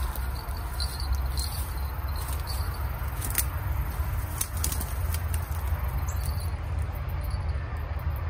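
Rustling and scattered crackles of a person moving through reeds and grass right beside the microphone, over a steady low rumble.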